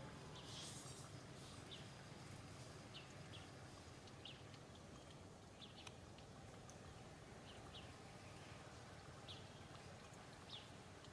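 Faint outdoor ambience with short, high chirps repeating irregularly, about a dozen of them, and a brief rustle about half a second in.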